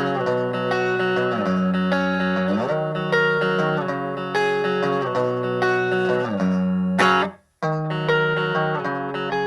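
Electric guitar played through a Marshall micro amp: a repeated riff with sliding notes. About seven seconds in it cuts off abruptly, and after half a second of silence the riff starts over.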